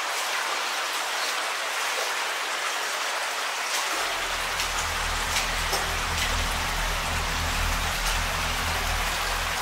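Steady rain-like hiss of water in a flooded concrete tunnel, with a few faint splashes. About four seconds in, a low steady hum sets in beneath it.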